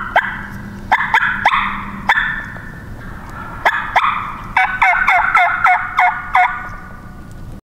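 Turkey yelps blown on a hand-held turkey call, imitating a hen to draw in a gobbler: several short sets of yelps, then a quicker run of about eight yelps near the end.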